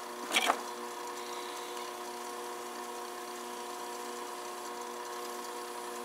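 Electric potter's wheel motor running at a steady speed, a constant hum made of several fixed tones. A short noise cuts in about half a second in.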